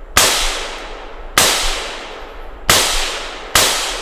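Four rifle shots from a .223 FN SCAR, fired one at a time about one every second and a quarter, each ringing out in a long echo through the woods.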